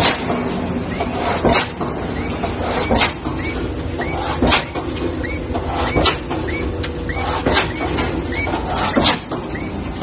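Pile-driving hammer striking a concrete pile in a steady rhythm, one heavy blow about every one and a half seconds, with a short squeak between blows over the steady rumble of the rig's engine.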